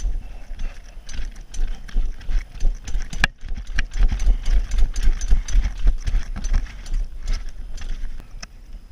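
Mountain bike rolling over a wooden plank boardwalk: the tyres clatter across the planks and the bike rattles over a steady low rumble, with one sharp click about three seconds in. It gets quieter near the end.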